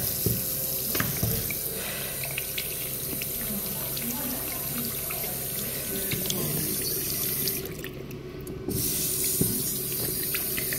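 Chrome push-top tap on a commercial washroom basin running a steady stream of water into a ceramic bowl, splashing around the drain. The flow stops about eight seconds in and starts again a second later.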